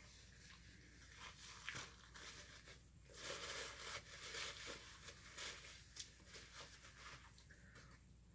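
Faint eating sounds close to the microphone: irregular crackling and rustling of food and takeout packaging, a little louder for a couple of seconds mid-way.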